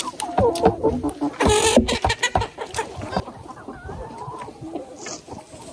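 Chickens clucking in short calls among many sharp clicks, busiest in the first two and a half seconds, with a brief rush of noise about one and a half seconds in.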